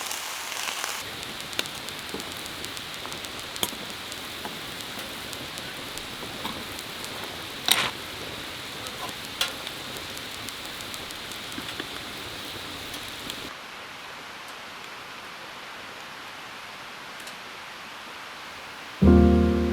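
Steady rain falling, with scattered louder drops ticking. About two-thirds of the way through it turns quieter and duller, and guitar music comes in at the very end.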